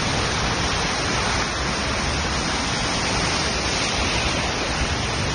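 Heavy downpour: a loud, steady, dense hiss of rain.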